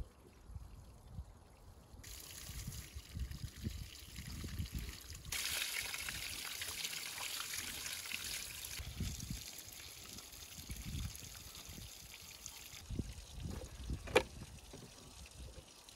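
Small mountain stream trickling and splashing over stones as a raw lamb leg is rinsed in it by hand. Near the end, a single sharp knock, the loudest sound, as the leg is laid on a wooden board.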